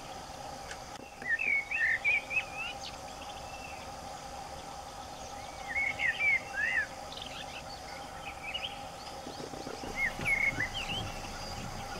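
Birds chirping in three short bursts of quick rising and falling notes, over a steady faint background hum.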